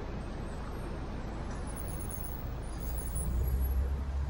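Outdoor street ambience: a steady low rumble with a faint hiss and distant car traffic, growing a little louder in the last second or so.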